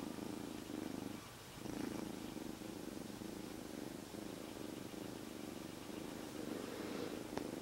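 Kitten purring loudly and steadily, close up, with a short break about a second in and a faint click near the end.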